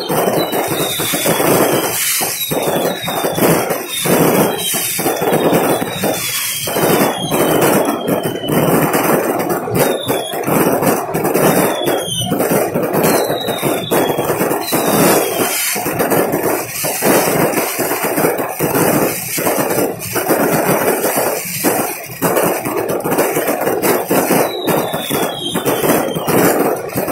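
Fireworks going off in quick succession: a continuous crackling din broken by sharp bangs, with many short, high whistles that fall in pitch.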